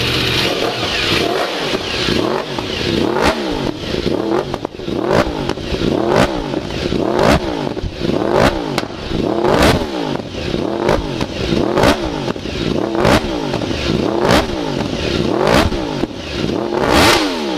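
Yamaha R1 sportbike engine blipped repeatedly through its exhaust, about one rev a second, each rev rising in pitch and dropping straight back to idle.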